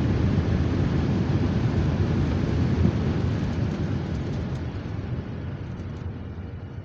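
Cabin noise of a jet airliner rolling out on the runway just after touchdown: a loud low rush of engines and airflow that fades steadily over the last few seconds as the plane slows.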